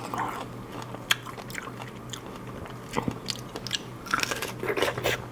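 Close-up chewing and biting of a large, juicy strawberry: wet mouth sounds with scattered sharp clicks, busier about four seconds in.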